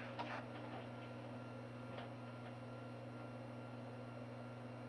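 Room tone of an interview-room recording: a steady low hum with light hiss, and one faint tick about two seconds in.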